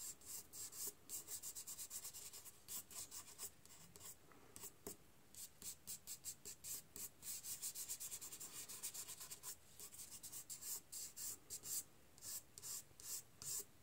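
A foam sponge applicator scrubbing pan pastel onto paper in quick short strokes, several a second, with brief pauses between runs.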